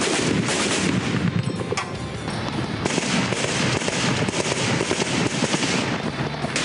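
Sustained automatic gunfire: many shots in quick succession, in bursts that thin out briefly about a second or two in and then come thick again.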